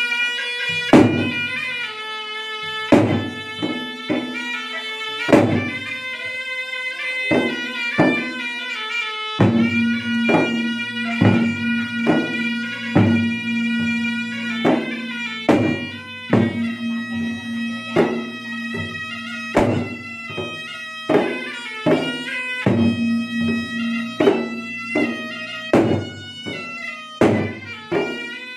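Traditional drum-and-shawm ensemble: two long double-headed barrel drums (gendang) beaten in a busy rhythm under an unbroken melody from a small shawm.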